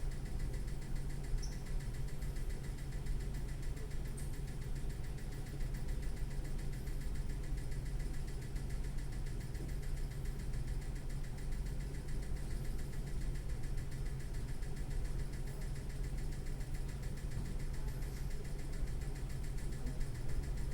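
Water fountain making a steady, fast pulsing hum that sounds like it is hyperventilating, set off by being bumped.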